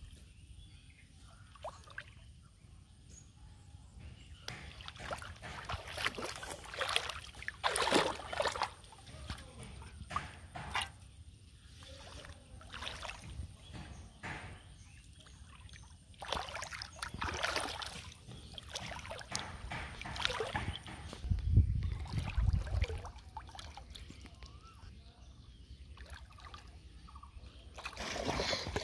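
Shallow muddy water sloshing and splashing in irregular bursts as hands grope through it for fish. A brief low rumble about two-thirds of the way in.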